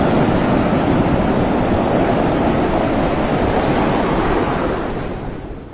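Sea surf rushing in a steady wash of waves that fades out over the last second or so.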